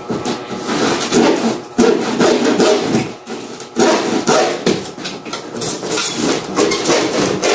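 Hand saw cutting through a PVC ceiling panel, in a run of back-and-forth rasping strokes.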